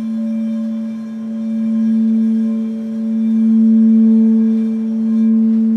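Large frosted quartz crystal singing bowl sung by working a combination rubber and suede mallet around its rim. It holds one deep steady tone that swells and eases in slow waves. A second, higher tone joins about a second and a half in.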